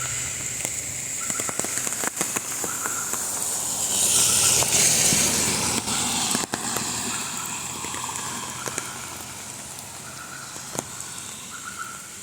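Rain falling, with many crackling drop impacts. A hiss swells loudest about four seconds in and then fades over several seconds.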